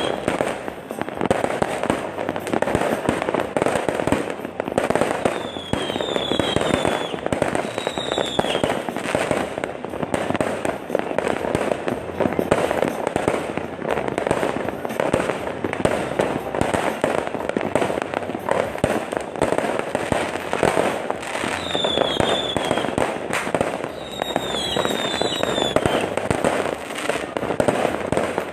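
New Year's fireworks and firecrackers going off without a break: a dense, continuous crackle of pops and bangs, with high whistles falling in pitch several times.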